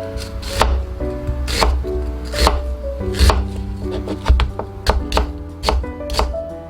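A kitchen knife chopping food on a cutting board: a steady series of chops, a strong one about once a second with lighter strokes between, over background music.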